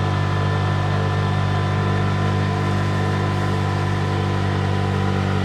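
Tuk-tuk's petrol engine running steadily under load in second gear, climbing a steep hill, heard from inside the open cab.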